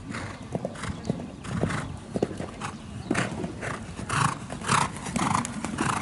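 Horse cantering over a sand arena and taking a jump: a steady stride rhythm of hoofbeats about twice a second, louder in the second half as it canters close past.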